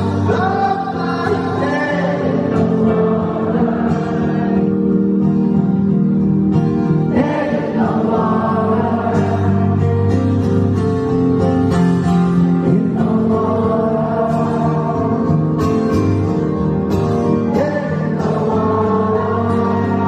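Live music: a male lead vocal sung over acoustic guitar, recorded from the audience in a concert hall.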